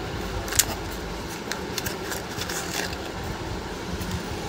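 A few light clicks and rustles as a small packet of new mixer-grinder carbon brushes is handled and opened, over a steady low background hum.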